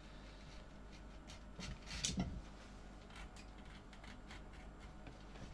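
A hand blade shaving the top edge of a leather sandal insole: short, light scraping strokes and small clicks, loudest about two seconds in.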